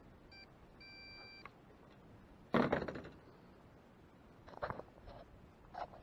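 A short electronic beep, then a longer steady beep lasting under a second. After that come a clunk with a brief rattle and a few soft knocks, like the drone being handled.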